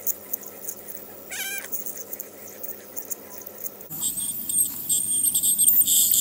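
Ultrasonic dental scaler working on a cat's teeth, its water spray hissing and crackling, louder and brighter from about four seconds in. The cat gives one short meow about a second and a half in.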